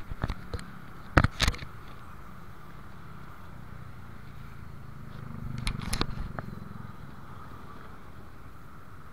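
Street traffic heard from a motorcycle stopped in a queue: engines idle with a steady low hum. A nearby engine swells briefly about six seconds in. Sharp clicks come a few times near the start and again around six seconds.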